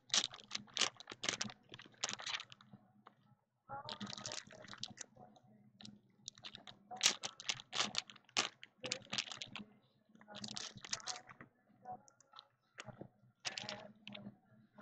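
Trading cards being flipped through and laid on a stack by hand: runs of quick clicks and snaps, a second or two at a time with short pauses between, over a faint steady low hum.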